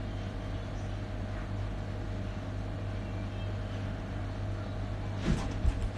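Steady low hum of room noise with a faint constant tone over it, and a brief bump and rustle about five seconds in.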